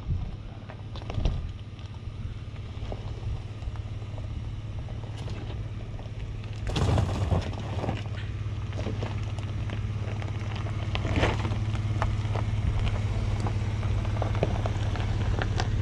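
Chevrolet Colorado ZR2 pickup crawling slowly over a rocky trail: a steady low engine hum, with tyres crunching and clicking on gravel and rock, the loudest crunches about seven and eleven seconds in.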